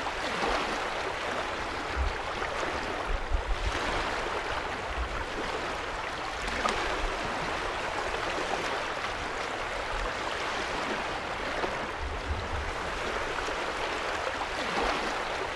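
Small waves lapping and washing onto a lake shore, swelling every few seconds, with short low rumbles now and then.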